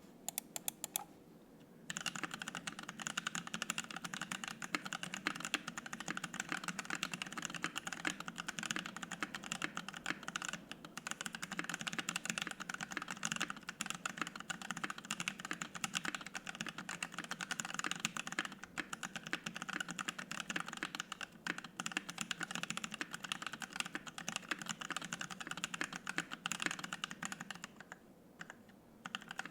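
Continuous typing on a mechanical keyboard fitted with T1 tactile switches, lubed and filmed, in a top-mount 65% Savage65 with an FR-4 plate and PBT keycaps. A few single keystrokes come first, then steady fast typing from about two seconds in, with a brief pause near the end.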